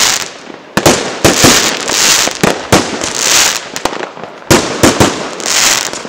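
Fireworks going off in quick succession: repeated sharp bangs over a crackling hiss. The loudest reports come about a second in and again at four and a half to five and a half seconds.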